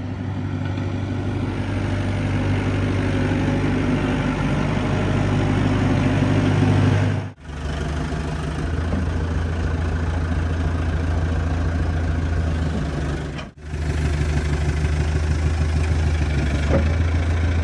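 Telehandler diesel engine running steadily at a low, even note, with two short sudden breaks in the sound.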